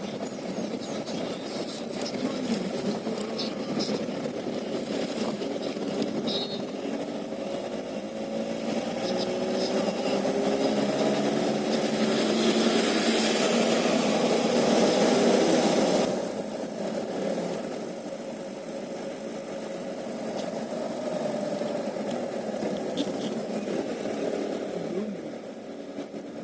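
Vehicle engine running on the move, its pitch rising and falling, with road hiss that builds to its loudest a little past the middle and then cuts off suddenly.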